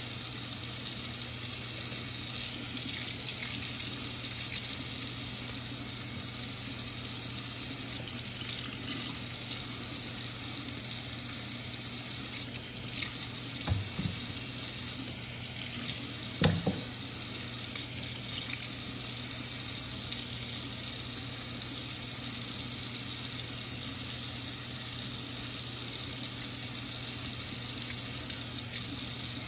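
Kitchen faucet running steadily into a stainless-steel sink as raw chicken pieces are rinsed under the stream. Two brief knocks come about halfway through.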